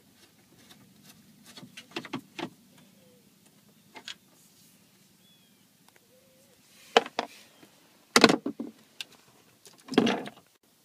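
Scattered clicks and knocks of a Phillips screwdriver and hands working at the factory radio's mounting screws and plastic dash trim. A few faint ones come first, then louder knocks in the second half.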